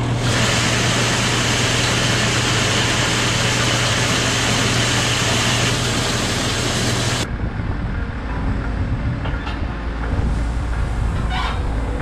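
Beet pulp bin auger running with a steady hum while beet pulp pellets run through it into the feed wagon. About seven seconds in the sound cuts off abruptly and a lower engine rumble takes over.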